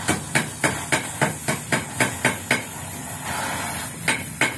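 Rapid sharp metallic tapping, about four strikes a second, with a short pause about two and a half seconds in. Under it runs the steady hiss of an oxy-acetylene torch tack-welding a motorcycle muffler.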